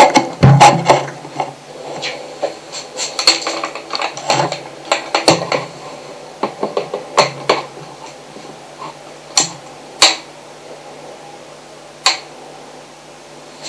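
Irregular sharp clinks and knocks, packed close together for the first half and then coming singly every second or two, picked up through a homemade piezo hydrophone with preamplifier over a faint low hum.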